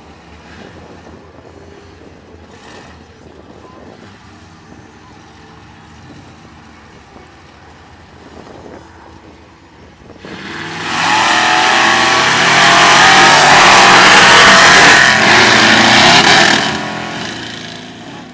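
Lifted Ford 4x4 mud bogger's engine idling at the start line, then launching about ten seconds in and running loud at full throttle for about six seconds before fading as the truck pulls away.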